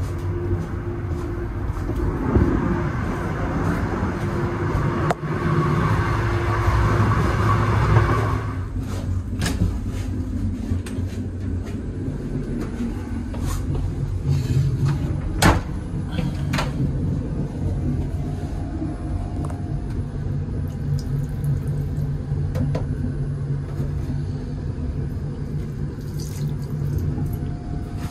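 Steady low rumble of a passenger train in motion. A hiss runs over it for about the first eight seconds, then stops abruptly, and a few sharp knocks follow.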